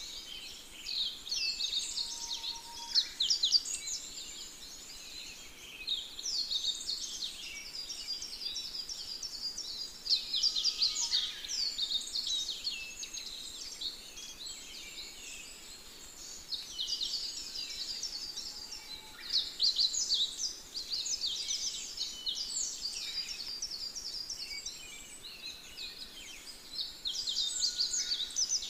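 Birds chirping and twittering in busy bouts of rapid, high notes, with short lulls between bouts.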